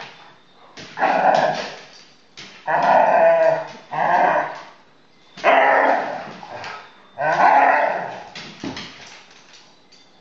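Great Dane and Rhodesian Ridgeback puppies barking and growling as they wrestle in play: about six loud outbursts, each around a second long and a second or two apart, dying away near the end.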